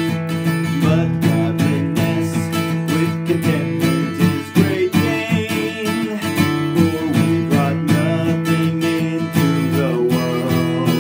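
Steel-string acoustic guitar strummed in chords, capoed at the second fret, with a man singing along in parts.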